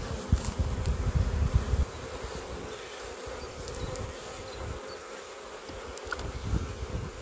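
A honeybee colony buzzing steadily over an open hive, a constant hum. A louder low rumble sits under the buzzing for the first two seconds.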